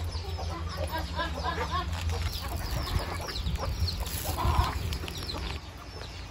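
A flock of backyard chickens clucking and calling over one another with many short, quick calls while they are fed grain.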